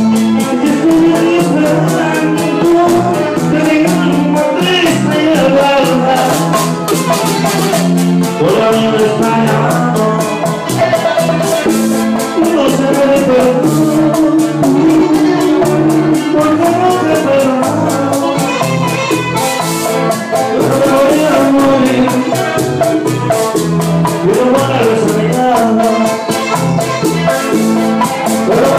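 Live Latin dance band playing, with fast, steady percussion under a moving melody line.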